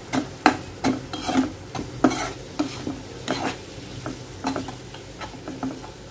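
Stainless-steel spatula scraping and stirring a thick spice masala around a kadhai in quick, irregular strokes, two or three a second, over a low sizzle of the paste frying in oil. The masala of tomato, onion and ground spices is being sautéed to cook the spices.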